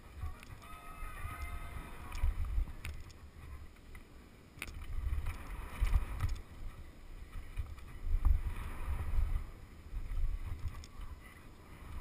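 Wind buffeting the microphone of a helmet-mounted action camera as the rider goes round a dirt BMX track, a low rumble that comes and goes in gusts, with a few sharp clicks and knocks.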